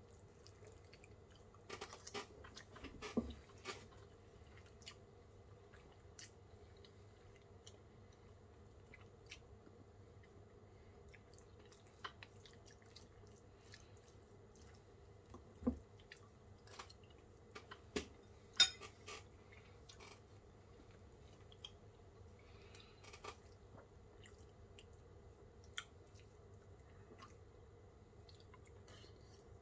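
A person eating noodles with a fork from a ceramic bowl: quiet chewing and scattered clinks and scrapes of the fork against the bowl, the sharpest a little past the middle.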